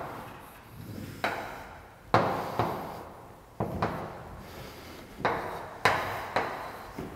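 Chalk on a blackboard: a series of sharp taps, each followed by a short scrape as a line is drawn, about eight strokes.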